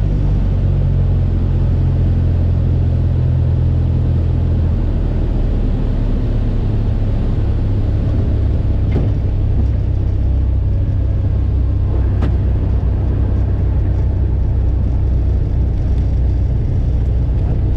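Single-engine light aircraft's piston engine and propeller running at low power, a steady rumble heard inside the cockpit as the plane rolls on the runway. The engine note shifts about five seconds in.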